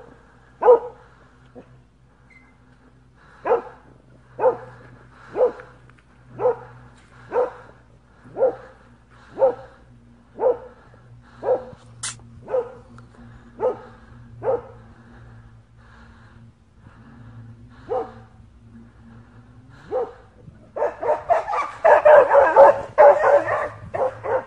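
A dog barking: single barks about once a second, thinning out past the middle, then from about 21 seconds a louder, rapid run of barking.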